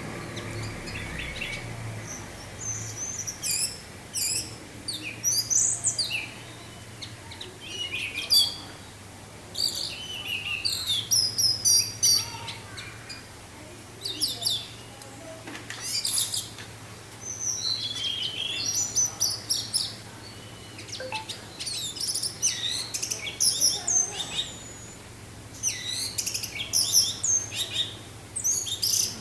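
Orange-headed thrush singing in bursts of rapid, varied whistled and chattering phrases with short pauses between them, over a steady low hum.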